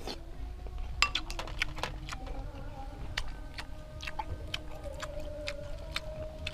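Close-up chewing of grilled apple snail meat: wet smacks and mouth clicks coming irregularly, many to the second after a first spoonful is slurped in.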